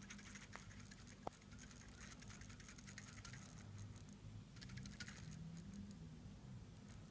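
Faint, rapid clicking and rattling from the loose rotor (oscillating weight) of a Seiko SNK809's 7S26 automatic movement as the watch is moved, with one sharper click a little over a second in. The owner takes it for the rotor wobbling up and down because its central screw is not fully tightened.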